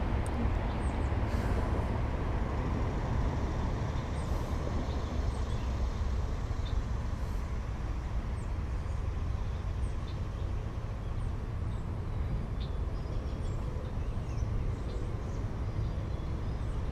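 Steady low rumbling noise with no distinct events, and a few faint, short high chirps scattered through it.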